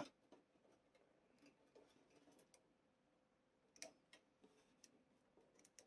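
Near silence, broken by a few faint, scattered clicks of plastic model-kit parts and LED wiring being handled, the clearest about four seconds in.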